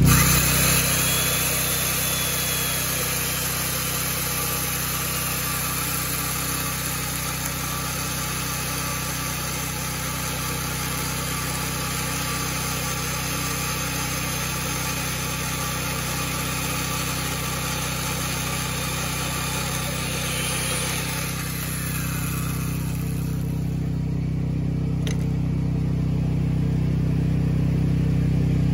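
Electric chain mortiser running and cutting a mortise into a timber beam: a steady motor drone under the hiss of the chain chewing through the wood. About 22 seconds in, the high hiss fades and the low motor hum comes forward, growing slightly louder near the end.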